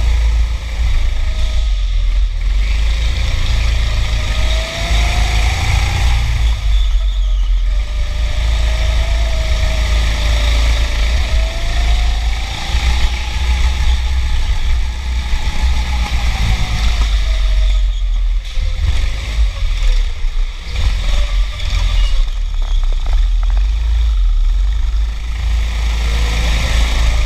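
Indoor racing go-kart driven at speed, heard from on board. Its motor's pitch rises and falls as it speeds up and slows, over a heavy low rumble.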